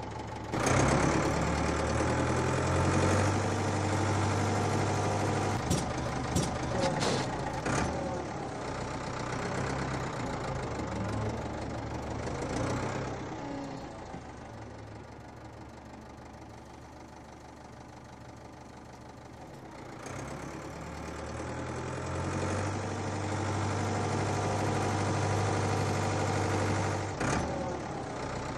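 Engine sound effect of a cartoon crawler tractor running with a steady low hum. It fades down through the middle and grows louder again in the second half.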